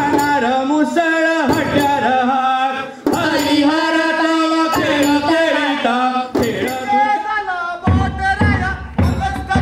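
Voices singing a Goan folk song to percussion. About eight seconds in, it cuts to a different piece with a heavy low drum beat.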